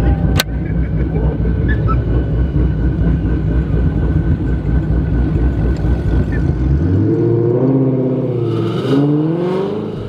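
Ford Mustang V8 engine running hard with a heavy, pulsing low rumble. About seven seconds in, its pitch climbs, drops and climbs again, revving up through gear changes as the car accelerates.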